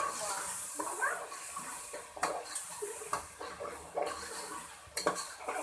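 Minced meat frying in a pan with a hiss, while a metal spatula scrapes and clinks against the pan as the keema is stirred and browned.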